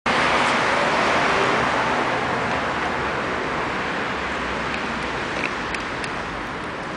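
Road traffic noise: the tyre hiss of a passing car, loudest at first and slowly fading away. A few faint clicks come near the end.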